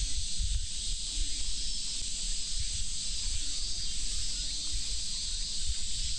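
A chorus of cicadas buzzing, a steady, high, hissing drone without breaks, with an uneven low rumble underneath.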